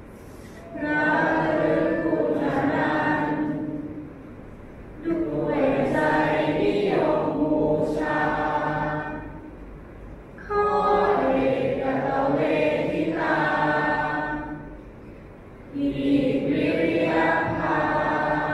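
A large group of voices chanting the Pali teacher-homage verse in unison, in long held phrases of three to four seconds with short pauses for breath between, four phrases in all.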